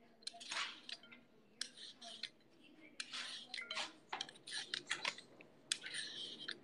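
Kitchen knife working raw vegetables by hand: a run of short, irregular scraping and cutting strokes, with light clinks of utensils.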